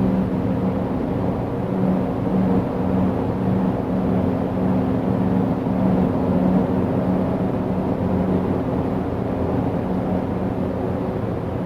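A distant, steady low droning hum with a slight pulsing, like a far-off engine. The recorder heard it at night during the solar storm and could not place it: he ruled out a motor glider and a lawn mower and suspects high-voltage power lines.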